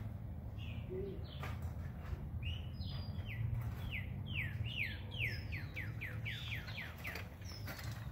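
A songbird singing a run of about a dozen quick, down-slurred whistled notes that come faster as it goes, over a steady low rumble.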